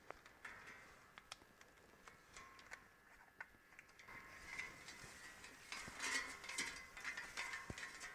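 Faint, irregular clicks and light metallic rattling as a metal 35 mm film take-up reel is handled and turned on its spindle while film is attached to it, busier about six seconds in.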